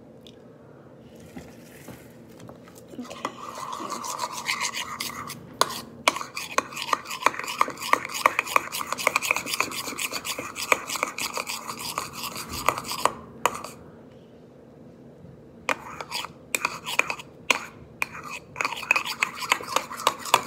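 Metal spoon stirring and scraping against a bowl, mixing vinegar into thick hand soap and salt. Rapid scraping clicks start about three seconds in, stop for about two seconds near the two-thirds mark, then start again.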